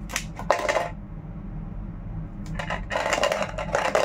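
A coin rattling inside a capped, empty plastic water bottle as it is shaken. A few clicks come in the first second, then a fast, continuous rattle starts about two and a half seconds in.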